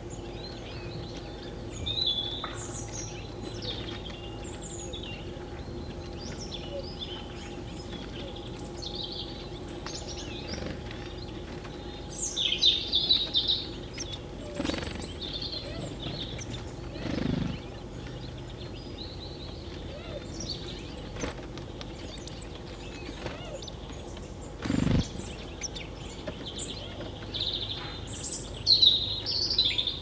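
Small songbirds at a winter feeder chirping and calling in short, scattered notes, loudest about twelve seconds in and near the end. A faint steady hum runs underneath, and two low thumps come about seventeen and twenty-five seconds in.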